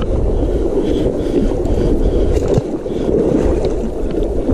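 Steady low rushing of river water close to the microphone, mixed with wind on the microphone.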